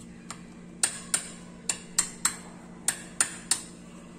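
Metal spoon clicking against the side of a bowl while stirring a grated-coconut filling: about eight sharp clicks at irregular intervals, several in quick pairs.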